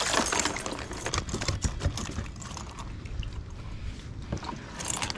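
Water dripping and sloshing with scattered small irregular clicks and knocks of hands and gear, as a freshly caught white perch is handled and clipped onto a stringer.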